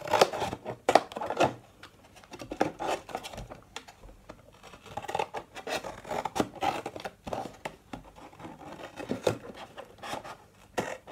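Small pointed craft scissors cutting around a cardboard milk carton: an irregular run of short, crisp snips with brief pauses as the blade is worked along the carton wall.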